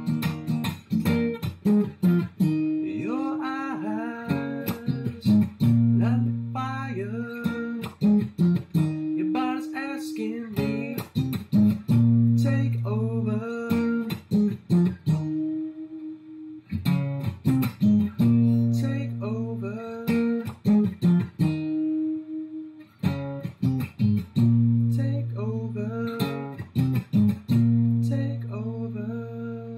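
Steel-string acoustic guitar strummed and picked through a repeating chord progression that cycles about every six seconds, recorded through a laptop's built-in microphone.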